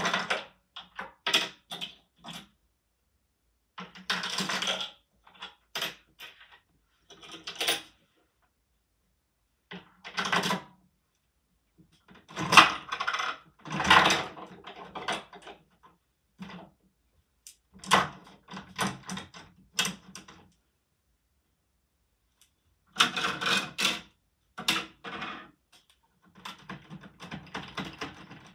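Plastic Lego-brick mechanism of a candy machine clicking and clattering as it is worked by hand, in irregular bursts of brick-on-brick knocks and rattles with silent gaps between them.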